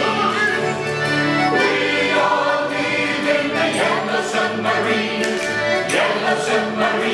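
A stage musical's cast singing together in chorus, with an accordion playing along.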